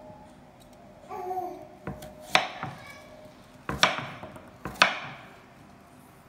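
Kitchen knife chopping a peeled white radish (daikon) into chunks on a wooden chopping board: four or five sharp chops, roughly a second apart.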